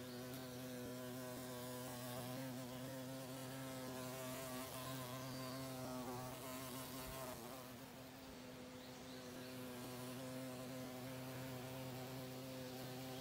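Female carpenter bee buzzing steadily as she bores her nest hole into a wooden trim board, a low hum whose pitch wavers slightly.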